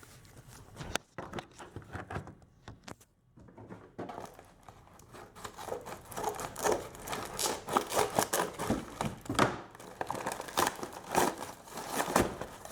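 Packaging being opened by hand: a few scattered clicks and handling noises, then from about four seconds in a dense run of crinkling and tearing.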